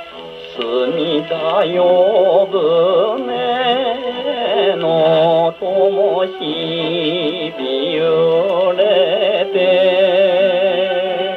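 A man's singing voice, with a wide vibrato and orchestral accompaniment, from a 1953 78 rpm record played on a Columbia G-241 portable gramophone. The voice comes in about half a second in, and the sound has no high treble.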